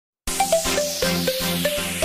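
Electronic background music with a steady beat and a short repeating melody, starting about a quarter of a second in.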